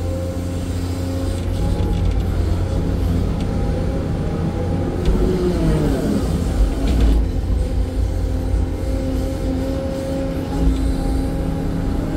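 Hydraulic excavator's diesel engine and hydraulics running under working load, heard from inside the cab: a steady low rumble with a whine on top. About halfway through, the whine dips in pitch and comes back up as the machine swings and works the boom.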